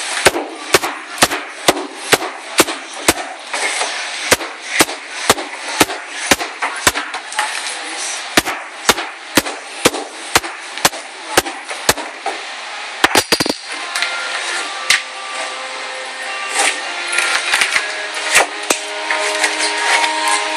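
Hammer blows on a wooden subwoofer box, struck about twice a second for some twelve seconds, then a rapid cluster of hits and a few scattered knocks as the internal braces are beaten loose.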